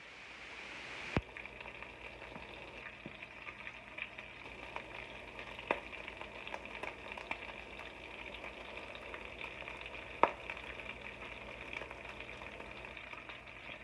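Bacon strips frying in a skillet of their own grease, partly cooked and starting to crisp: a steady sizzle with scattered crackles and a few sharper pops.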